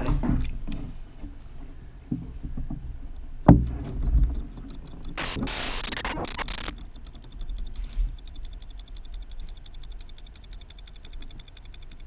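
HEXBUG AquaBot robotic fish's small tail motor ticking fast and evenly while it swims under water. There is a single knock about three seconds in and a burst of rushing noise about five seconds in.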